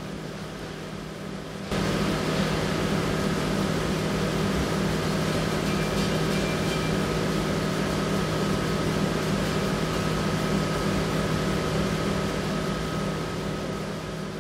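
Coffee roaster's cooling tray running, its rotating stirring arms churning a bed of roasted beans: a steady machine hum under the hiss of tumbling beans. It gets abruptly louder about two seconds in.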